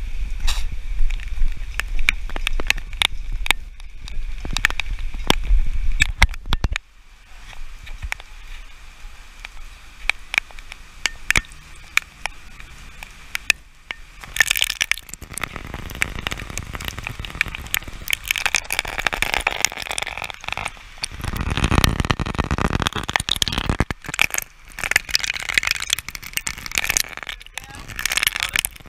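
Raindrops and water striking the GoPro camera, a stream of irregular crackling clicks, with a low rumble during the first seven seconds and patches of rushing noise in the second half.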